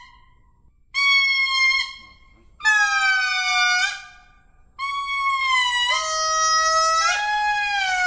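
Lemur calling: a high, drawn-out call about a second in, a second one a moment later, then a longer call that a second, lower voice joins partway through, the pitch stepping up and down within each.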